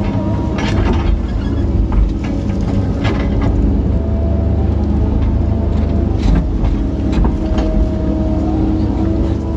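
Kobelco SK135SR excavator running under load, heard from inside its cab, as the bucket digs and swings a load of pond silt. A steady engine drone with a few sharp knocks.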